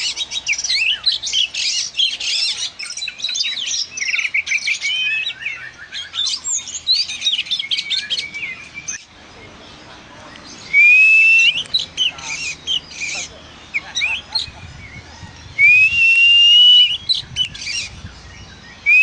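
Oriental magpie-robin (kacer) singing: a fast, varied run of chirps and trills for about nine seconds, then a short lull, then long rising whistled notes twice.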